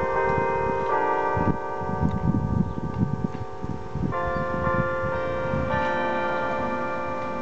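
Church bells ringing, several bells of different pitches struck in turn and each ringing on over the others. A low rumbling noise runs underneath, strongest in the middle.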